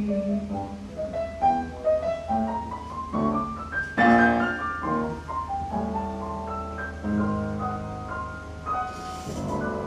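Upright piano played solo: a run of notes climbing step by step, a loud chord struck about four seconds in, then more chords.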